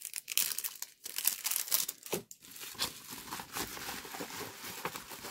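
Wrapping paper crinkling and rustling as it is lifted and bent by hand, with a run of sharp crackles in the first couple of seconds, settling into a softer rustle.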